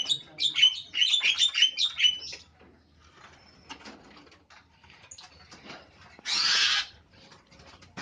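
Javan myna (jalak kebo) calling: a fast run of loud, sharp chattering notes over the first two seconds, then scattered quieter clicks. There is a short harsh, noisy burst about six seconds in.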